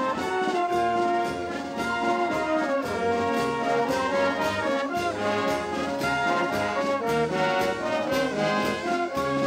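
Wind band of clarinets, flute, saxophone, trumpets, French horn and euphonium playing a tune together over a steady beat.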